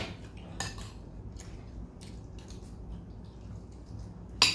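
Cutlery clinking and scraping against a plate during a meal: a few scattered light clicks, with the sharpest clink near the end.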